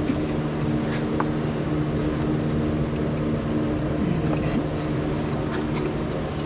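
A steady low machine hum with a few light clicks and taps.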